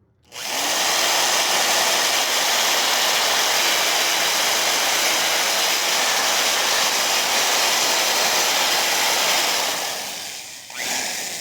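Power drill running with a newly bought drill bit, a loud steady whir for about nine seconds. It tails off near the end, then gives one short second burst.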